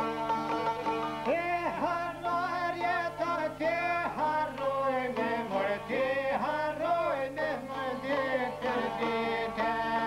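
Albanian folk music: two long-necked lutes plucked together, with a singing voice coming in about a second in, in a wavering, ornamented line.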